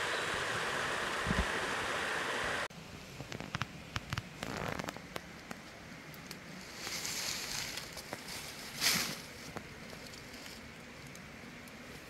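A mountain stream flowing gently over rocks, a steady rush that cuts off suddenly a little under three seconds in. After that come quieter crackling and rustling of dry leaves, with a louder rustle near nine seconds.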